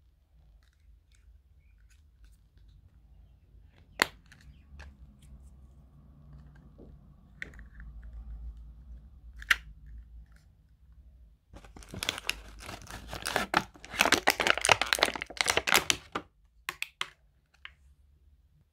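Small plastic clicks from handling an earbuds charging case, then about four seconds of loud crinkling and tearing of plastic packaging, followed by a few more clicks near the end.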